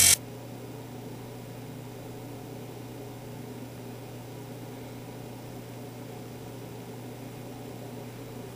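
A micro RC helicopter's small electric motor whine cuts off abruptly right at the start, leaving a steady low hum with a faint hiss.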